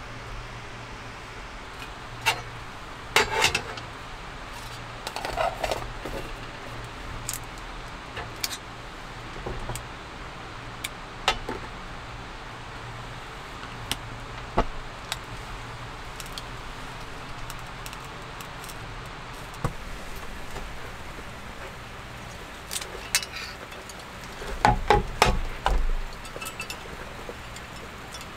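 Scattered light clinks and knocks of aluminium cookware being handled: chopsticks against a rectangular aluminium mess tin as it is filled, then the tin and its stand being set down on a wooden table. A denser, louder run of metal clattering comes near the end.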